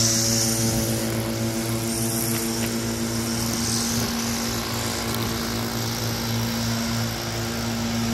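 Small gas two-stroke landscaping engine idling steadily, a constant even pitch. A higher hiss of air fades away within the first second.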